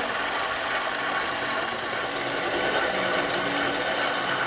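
Harbor Freight mini metal lathe running with a steady whine while its tool takes a light facing cut across the end of a steel bolt.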